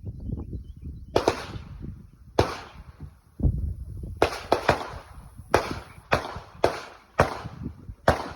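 A .22 LR Winchester Wildcat semi-automatic rimfire rifle firing a string of about nine sharp shots, irregularly spaced, some in quick pairs about half a second apart.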